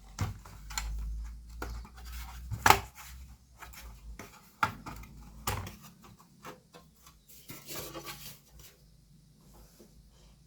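Dell Latitude E6430 laptop's back cover being pried and worked off the case: irregular clicks, snaps and knocks with scraping and rubbing between them, the sharpest snap about two and a half seconds in.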